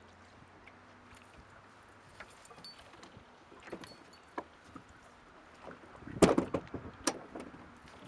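Scattered knocks and clicks on an aluminium fishing boat as the angler moves and handles gear at the bow, with a louder cluster of knocks about six seconds in and a sharp click a second later.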